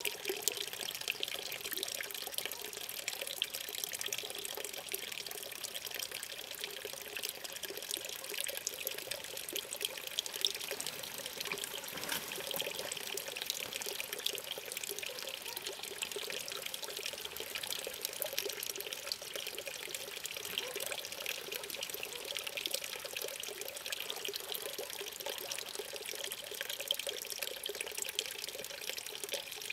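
Water trickling and splashing steadily at an artificial drinking pool, a continuous patter of small drips and splashes.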